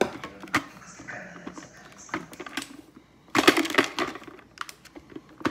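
Clicks, knocks and scraping as a juicer's pulp-caked mesh strainer basket is handled and worked loose, with a louder crackling scrape about three and a half seconds in.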